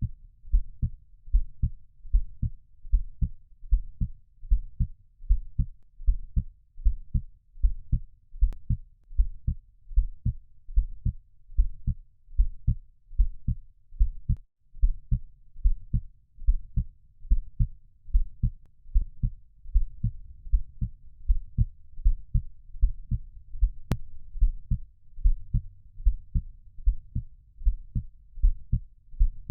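A heartbeat sound of the womb kind played for soothing: low thumps in pairs repeating in a steady, even rhythm.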